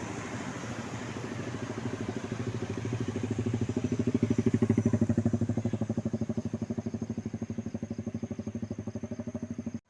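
A motor vehicle passing close by, its engine beating in a fast, even pulse. It grows louder to a peak about halfway through, fades away, then cuts off suddenly near the end.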